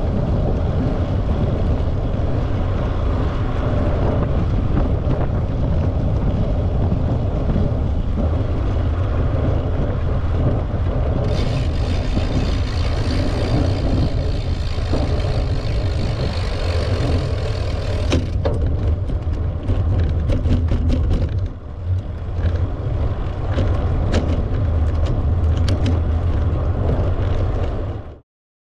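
Wind rumbling on the microphone of a moving rider, with tyre rolling noise. Partway through, a brighter hiss joins for several seconds, then scattered light clicks and knocks; the sound cuts off suddenly near the end.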